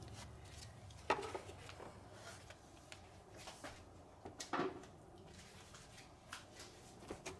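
A few light knocks and clunks from parts and tools being handled, the clearest about a second in, near the middle and just before the end, over a faint steady hum.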